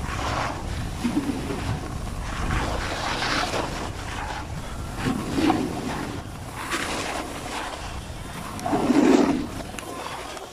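Snowboard sliding over snow, its edge scraping in a run of swells as it turns, with wind rushing over the microphone.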